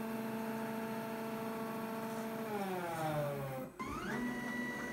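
Gear-drive stepper motors of a 3D-printed six-axis robot arm whining as the arm moves: a steady whine falls in pitch and stops as one move ends a little after halfway. After a brief break, a second, higher-pitched whine rises and holds as the next move starts.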